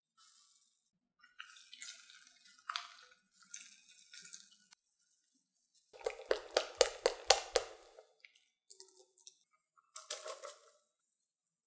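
Wire whisk beating a runny tapioca-and-cheese batter in a glass bowl, about five quick strokes a second for roughly two seconds. This is the loudest sound. Before it come softer pouring and handling sounds. Near the end, shredded mozzarella drops into the wet batter.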